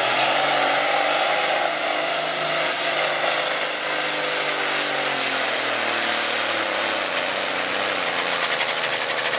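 Farm stock Case tractor's diesel engine at full throttle under heavy load, pulling a weight-transfer sled, with its exhaust blaring out of a stack pouring black smoke. The engine's pitch sags through the middle as the sled's weight bogs it down.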